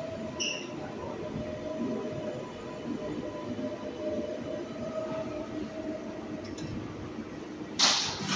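Interior of an R142A subway car running between stations: a steady rumble of wheels on rail with a thin, steady whine. Near the end there is a sudden, louder rush of noise.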